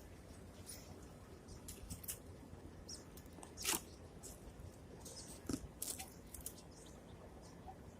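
Faint, scattered rustling and crackling with a few sharper clicks, the loudest about three and a half seconds in and a small cluster a couple of seconds later.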